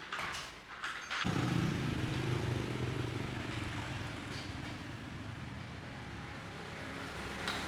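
Hair dryer switched on about a second in after some handling noise, then running steadily with its motor humming and fan blowing air. A short click comes near the end.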